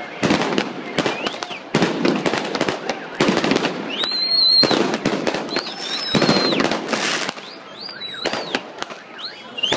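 A dense, irregular run of firecrackers cracking and banging, with several high whistles that rise, hold and fall.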